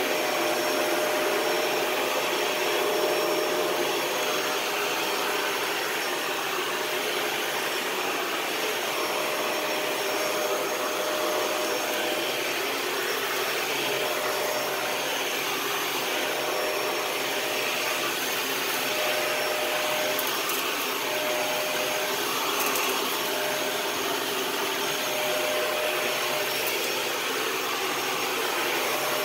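Dyson DC41 Animal Complete upright vacuum cleaner running steadily: a rush of air with a thin, steady high whine, and a lower tone that comes and goes.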